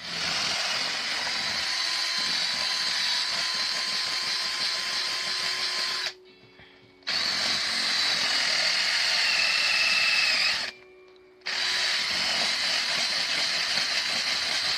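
Electric drill boring into wood, running steadily with a fixed whine, stopping briefly twice and starting again, in three runs.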